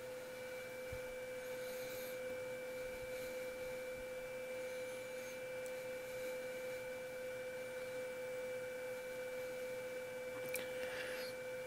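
A steady electrical hum: one mid-pitched tone with fainter higher tones above it. A few faint clicks of small plastic parts being handled come near the end.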